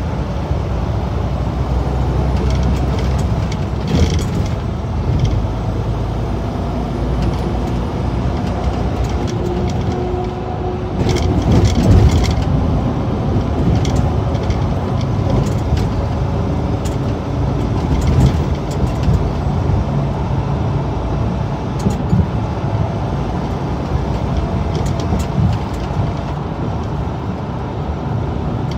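Truck engine and road noise heard from the cab while cruising on a highway: a steady low rumble with a few brief knocks, the strongest about twelve seconds in.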